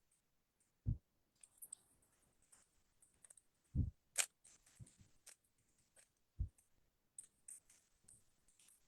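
Faint, scattered clicks and a few soft thumps from a Rubik's cube being turned and handled, with a louder click and thump about four seconds in.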